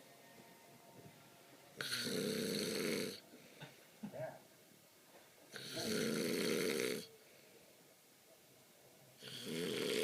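A man snoring in his sleep: three long snores about four seconds apart, each a little over a second long, with quiet breathing between them.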